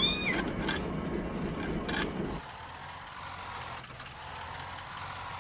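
A kitten gives one short, high mew, over a vehicle engine running low with a few clicks. The rumble drops to a quieter steady hum about two and a half seconds in.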